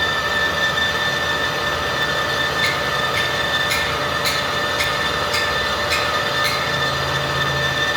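Metal lathe running, a steady whine over machining hiss, with a run of sharp, evenly spaced ticks about twice a second through the middle.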